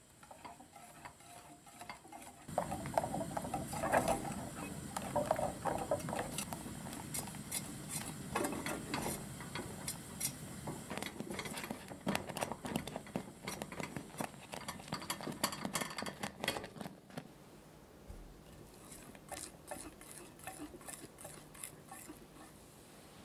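Wire whisk stirring thickening pastry cream in a stainless steel saucepan, a quick, busy run of clicks and scrapes against the metal. It turns quieter and sparser about two-thirds of the way through.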